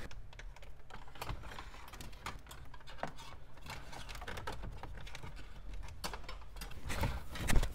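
Rustling and light irregular clicking of a taped bundle of RCA cables and a remote turn-on wire being handled and fed down behind a car's dashboard, a little louder near the end.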